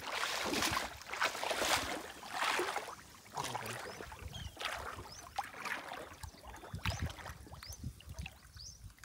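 Shallow pond water sloshing and splashing around legs and hands for the first few seconds, then settling into small scattered splashes and drips as hands work in the water.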